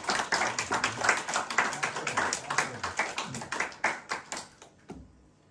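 Audience applauding at the end of a talk, a dense patter of hand claps that thins out and dies away about five seconds in.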